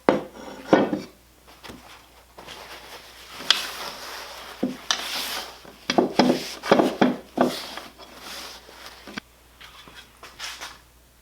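Hands rubbing, scrubbing and knocking on old boat-motor parts as they are cleaned: irregular knocks and clatter with a stretch of hissy scrubbing about midway.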